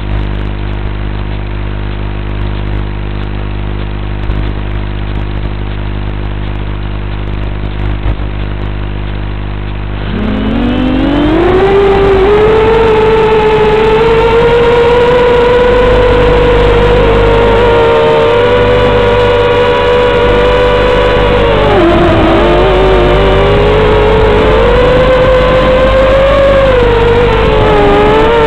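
Small racing quadcopter's brushless motors (Scorpion 2204 2300KV) and props. For about ten seconds there is a steady low hum; then the motors spool up with a rising whine and hold a steady high propeller whine, whose pitch dips and climbs again twice as the throttle changes in flight.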